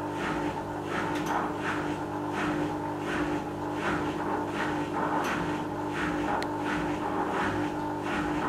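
Original 1992 Askoll magnetic drain pump of a Zanussi Super Jetsystem washing machine running, a steady hum with a rushing that pulses about twice a second. It is slightly noisy, which the owner puts down to its age.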